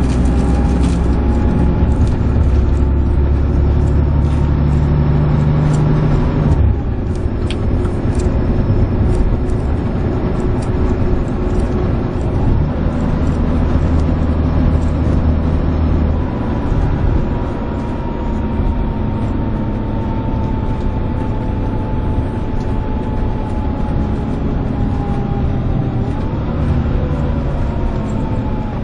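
Volvo B11RT coach's 11-litre six-cylinder diesel engine working hard at road speed, with a high whine running over it, heard from inside the passenger saloon. The low drone is heaviest at first, eases about six seconds in, builds again from about twelve seconds and eases once more after sixteen.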